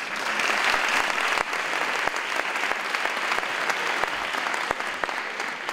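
Audience applauding, starting suddenly and thinning out near the end.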